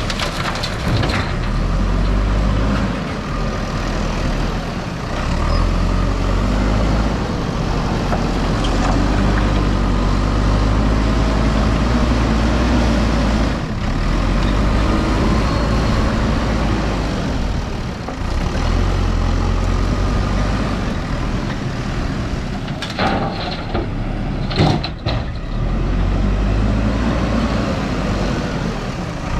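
Diesel engine of a JCB 3DX backhoe loader running and revving up and down as it works loading gravel, with a couple of sharp clattering knocks near the end.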